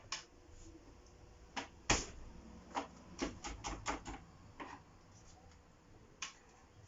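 Irregular light clicks and knocks of kitchen utensils and containers being handled during food prep, about a dozen, the sharpest one about two seconds in.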